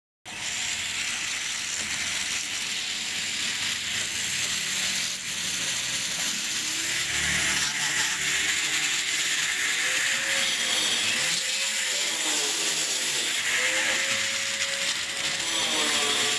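Steady harsh scraping and rasping, with a faint pitch that bends up and down, as parts of a rusty circular saw are worked over during cleaning. It starts abruptly just after the beginning.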